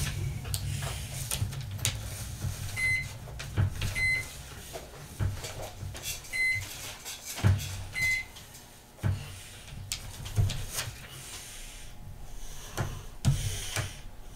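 Microwave oven running with a steady low hum while heating plastisol, with a few short high beeps and light knocks of bottles and tools being handled on the bench.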